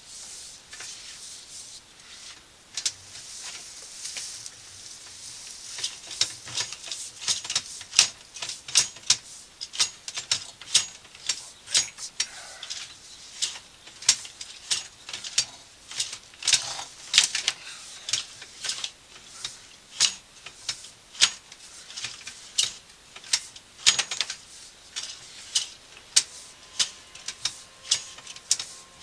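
Sewer inspection camera's push cable being fed and worked through pipe bends: sharp, irregular clicks and light scraping, at first sparse and then about one or two a second from about six seconds in.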